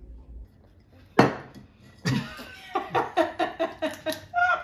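Cutlery knocking on a plate: a single sharp clack about a second in, then a run of quick ringing taps, about four a second.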